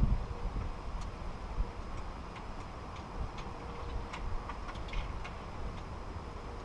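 Light, irregular clicks and taps of small metal hardware and hand tools while a storm door latch and lock assembly is fitted, over a low rumble.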